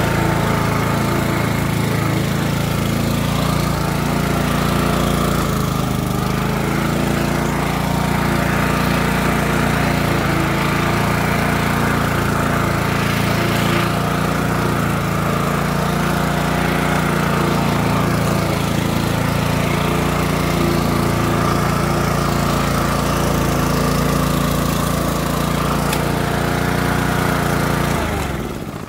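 Petrol walk-behind lawn mower engine running steadily while mowing grass. Its sound falls away quickly near the end as the engine stops.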